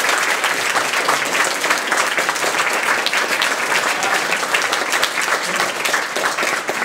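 A crowd applauding, many people clapping at once in a steady, dense patter.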